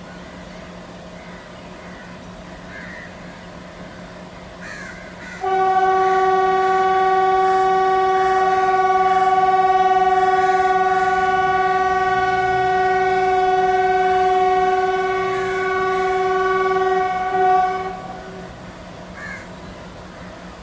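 WDM3A ALCO diesel locomotive's horn sounding one long, steady blast of about twelve seconds, starting about five seconds in, over a low steady hum.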